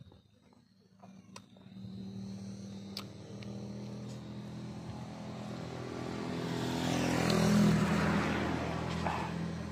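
A motor vehicle's engine drawing near and passing by: it grows steadily louder to a peak about eight seconds in, then fades.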